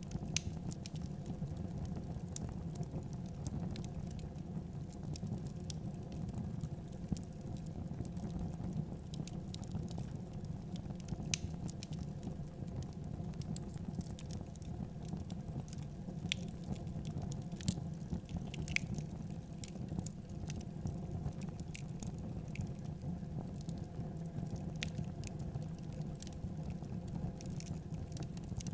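Rice grains being stirred and scraped around a hot metal wok while dry-roasting, with scattered light crackles and ticks over a steady low hum.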